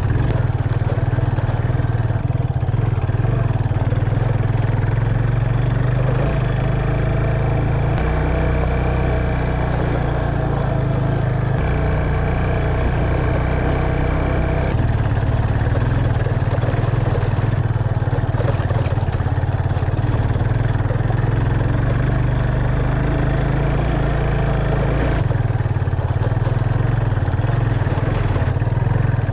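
Yamaha FZ25's single-cylinder engine running while the bike is ridden, a steady low drone whose pitch and strength shift a few times with the throttle.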